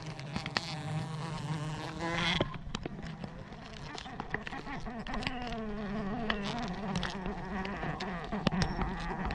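A swarm of forest bees buzzing around their nest as it is disturbed for harvest: a steady, wavering drone with scattered clicks and knocks throughout.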